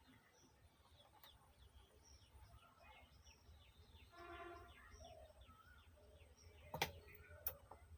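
Faint birds chirping in the background, with one brief call about halfway through, and two sharp clicks close together near the end.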